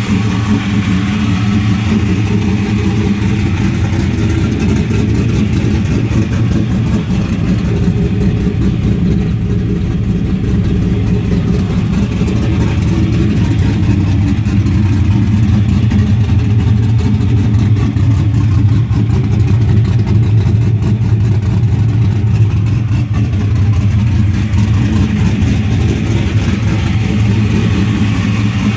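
Rebuilt LQ9 6.0-litre V8 of a 2002 Camaro SS, with new cylinder heads and an aftermarket cam and not yet tuned, running steadily at a constant speed without revving.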